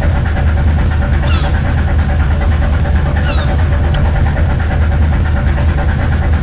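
Fishing boat engine running steadily with a deep, even hum. Twice, a short high cry falls in pitch over it.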